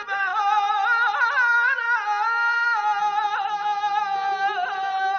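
Persian classical music in the avaz style: a high melodic line held on long notes and ornamented with quick trilling turns, with a few plucked notes from a long-necked lute.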